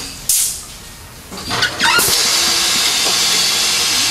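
Compressed air hissing into a freshly mounted tire through a valve stem with its core removed, inflating it fast. A short blast about a third of a second in, then a loud, steady hiss from about halfway.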